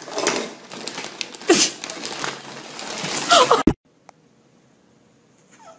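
Plastic bag crinkling and rustling as a cat treads on it, with one sharp, louder noise about a second and a half in. The rustling cuts off suddenly a little past halfway, leaving only faint room sound.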